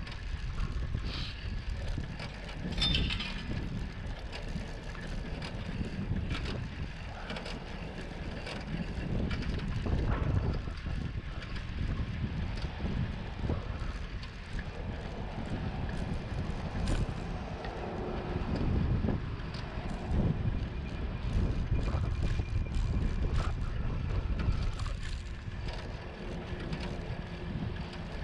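Wind rumbling on a handlebar-mounted camera's microphone as a bicycle rides along, with scattered light clicks and rattles from the bike over the pavement.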